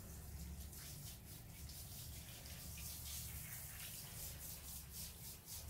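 Faint water running from a tap in a small tiled bathroom, a steady hiss over a low hum.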